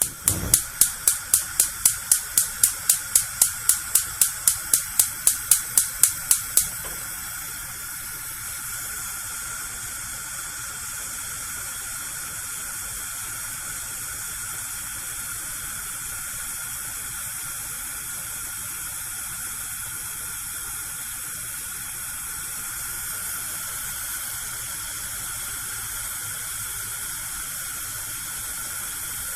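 Gas cooker burner lighting: the spark igniter clicks rapidly, about four clicks a second, for the first six seconds or so while gas hisses, then stops, leaving the burner alight with a steady hiss.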